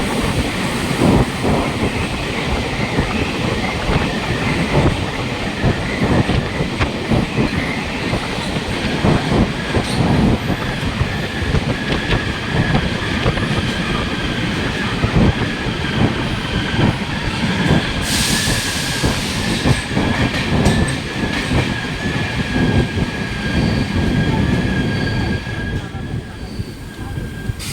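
Train running along the track, its wheels knocking over the rail joints, with a thin, steady wheel squeal from about eight seconds in until near the end. There is a brief hiss a little past the middle.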